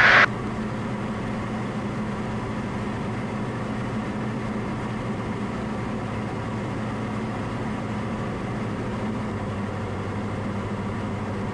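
Diamond DA40 light aircraft's piston engine and propeller droning steadily in the cabin, at constant power on the approach descent.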